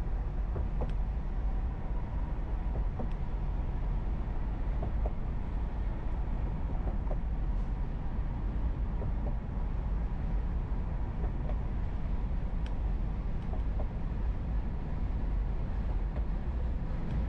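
Steady road noise of a car driving at speed, heard from inside the cabin: a low rumble of tyres and engine with a faint steady hum, and occasional small ticks and rattles.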